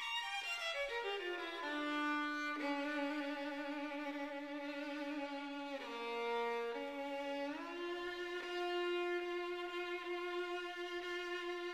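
Slow solo violin music: a run of notes stepping downward, then long held notes, dipping to a lower note about six seconds in and rising to a note held to the end.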